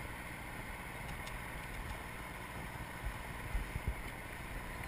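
Steady rush of moving river water around a kayak, with wind buffeting the microphone in a few low thumps about three and a half to four seconds in.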